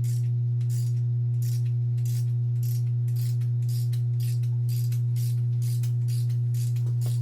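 Steady electrical hum from stereo speakers, a low constant tone. Over it runs a regular high ticking, about two and a half a second.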